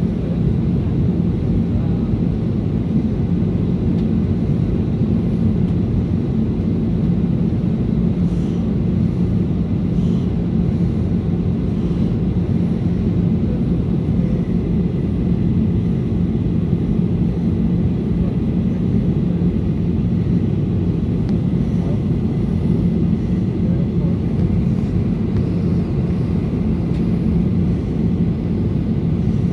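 Steady cabin noise inside a Ryanair Boeing 737 airliner descending on approach: an even, low drone of the jet engines and air rushing past the fuselage, with a constant low hum.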